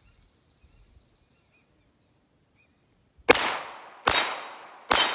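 Three pistol shots from an STI 2011 DVC Open 9mm race gun with a compensator, fired about a second apart starting around three seconds in. Each shot trails off with the metallic ring of a steel target plate being hit.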